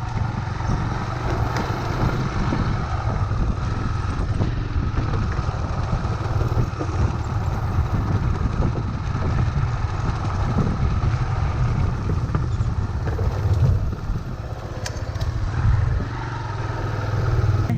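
Honda XR250 dirt bike's single-cylinder four-stroke engine running steadily while being ridden, with a heavy low rumble.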